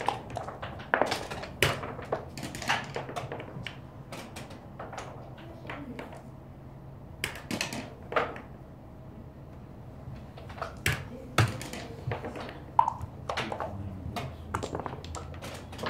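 Scattered light clicks and clacks of backgammon checkers and dice on boards around the room, irregular and unhurried, over a low room hum.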